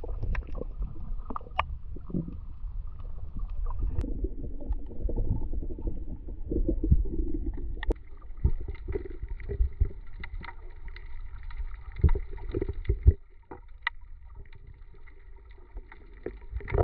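Underwater sound picked up by an action camera in its waterproof housing as a free-diver swims: a muffled, continuous low rumble of water movement with scattered sharp clicks and knocks, the loudest knock near the end, after which it goes quieter.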